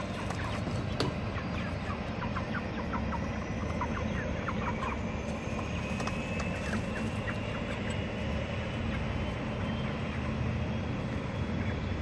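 White broiler chickens clucking and peeping in short, scattered calls, busiest in the first half, over a steady low background rumble.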